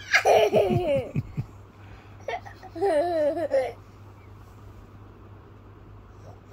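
Children laughing: a loud burst of laughter in the first second or so, then a second, shorter round of laughter about two and a half seconds in.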